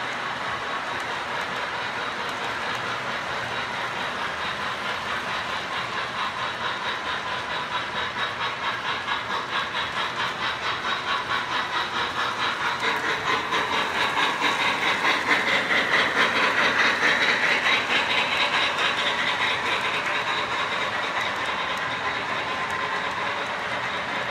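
O-gauge model train running: freight cars roll by with a steady rumble and clatter. Then the MTH RailKing Imperial Union Pacific Big Boy 4-8-8-4's onboard Proto-Sound 3.0 steam sound comes in as a fast, rhythmic chuffing. It grows louder toward the middle and fades again as the locomotive passes.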